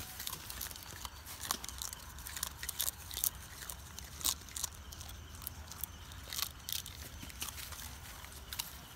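Goat kid biting and chewing a leaf, a run of irregular crisp crunches and crackles.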